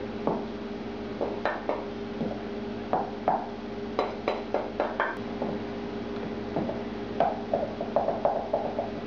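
A wooden spoon knocks and scrapes against glass mixing bowls as beaten eggs are scraped out and folded into béchamel sauce. The knocks are irregular, with a quick run of stirring taps near the end, over a steady background hum.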